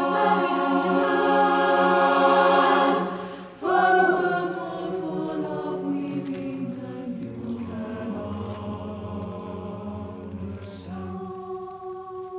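Mixed chamber choir singing a loud sustained chord that dies away about three and a half seconds in; the choir comes straight back in loud, then grows gradually quieter to a soft held chord near the end.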